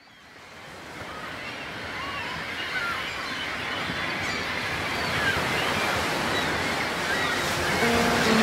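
Ocean surf washing steadily on the shore, fading in at the start, with scattered short high chirps. Music begins near the end.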